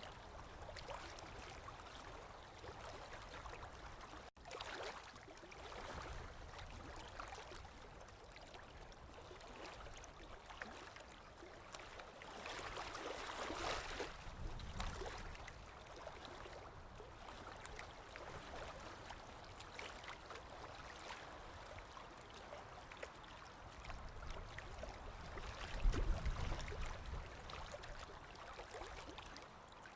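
Flowing water gurgling and trickling, a steady wash that swells louder about midway and again near the end, where a low rumble comes in.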